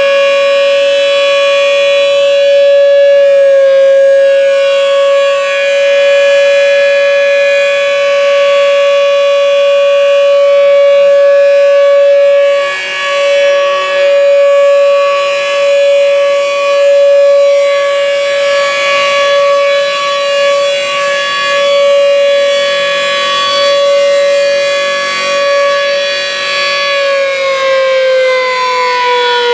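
The Gaok siren at Plengkung Gading sounding one long, steady wail, the signal that it is time to break the Ramadan fast. Its pitch steps up slightly a few seconds in and begins to slide down near the end.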